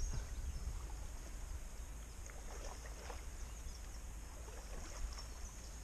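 Quiet river ambience around a drifting kayak: faint birdsong, a few short chirps in the middle of the stretch, over a steady low rumble.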